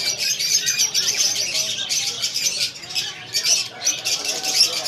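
Many caged parrots chirping and squawking at once in a dense, continuous chatter of overlapping high calls.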